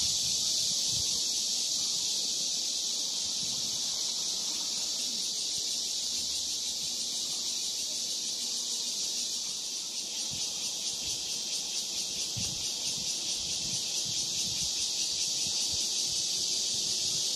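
Cicadas buzzing in a steady, high chorus, which takes on an even pulsing of about three beats a second from about ten seconds in. Faint soft knocks from hands handling the cloth doll lie underneath.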